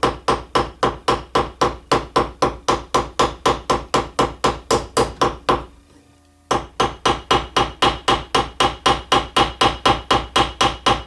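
Ball-peen hammer tapping a rivet pin in quick, even blows, about four or five a second, with a short break about six seconds in. The pin is being peened to spread its end into a chamfer, making a flush rivet.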